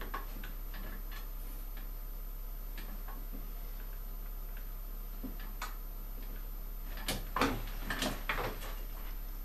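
Faint scattered clicks and taps of paintbrushes and a mahl stick handled against a canvas on an easel, with a short cluster of louder knocks about seven to eight and a half seconds in, over a steady low electrical hum.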